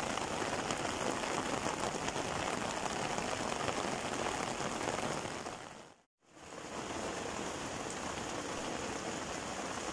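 Steady rain falling on bare dirt ground, an even hiss. It fades out to silence for a moment about six seconds in and comes straight back.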